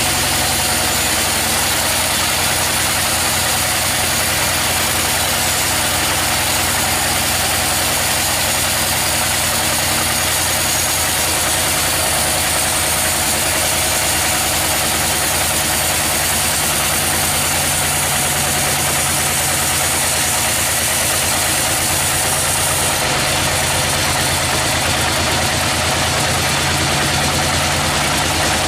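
Sawmill machinery running steadily: a constant engine hum under an even hiss, keeping the same level throughout.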